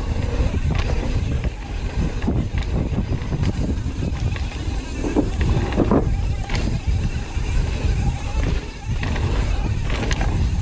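Wind buffeting a body-mounted camera's microphone over the tyre roar and chassis rattles of a mountain bike descending a rough dirt downhill trail, with many small knocks from roots and rocks.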